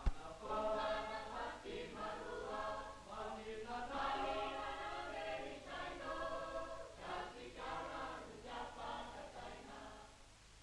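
A choir singing a song in several voices, with held notes, fading away near the end.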